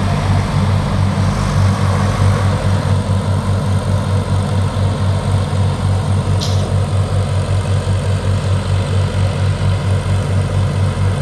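Diesel engines of a Swaraj 744 FE and a Sonalika RX 47 tractor working hard under load in a tug of war, a steady rhythmic throb. A brief sharp click about six and a half seconds in.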